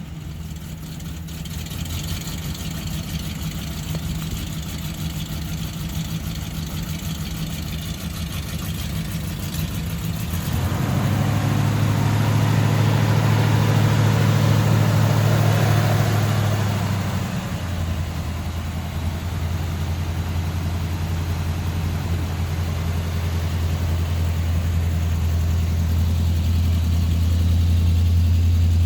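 1970 Plymouth Superbird's V8 engine running. It idles steadily, the revs are raised about ten seconds in and held for several seconds, then it settles back to a steady idle.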